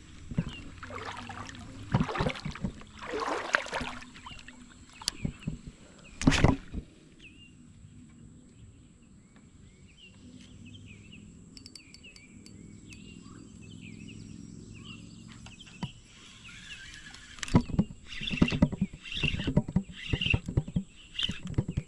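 Water splashing in irregular bursts, with a sharp loud splash about six seconds in. A quieter stretch in the middle carries faint short chirps, and another cluster of splashing comes near the end.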